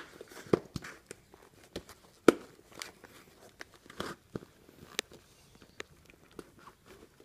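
Irregular clicks, taps and rustles of a motorcycle helmet's padded fabric liner being pushed and tucked into the shell by hand; the sharpest knock comes a little over two seconds in.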